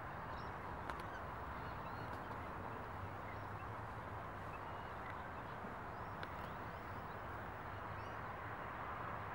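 Faint, scattered bird calls over a steady outdoor background hiss.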